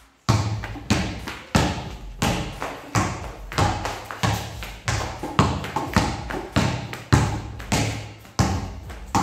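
A basketball dribbled steadily on a hard tiled floor: a regular run of bounces, about two a second, each a sharp slap with a short echoing thud.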